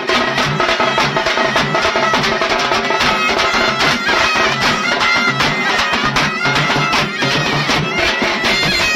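Traditional South Indian festival music: a loud, reedy wind instrument playing a melody over fast, dense drumming.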